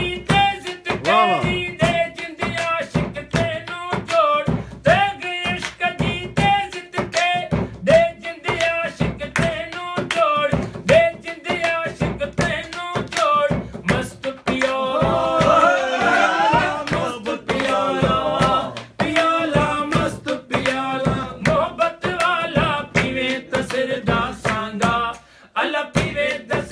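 A man singing a song unaccompanied, with a steady beat of sharp hand taps on a wooden tabletop keeping time.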